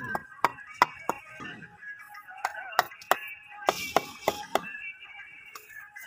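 About a dozen sharp, irregular knocks of a mason's trowel tapping bricks down into fresh mortar, with a brief scrape a little past the middle, over background music.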